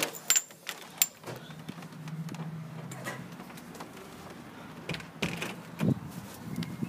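A lever door handle being pressed down, its latch clicking twice as the door is opened, followed by a few dull knocks a few seconds later.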